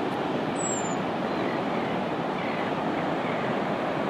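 Steady rushing noise of ocean surf and wind.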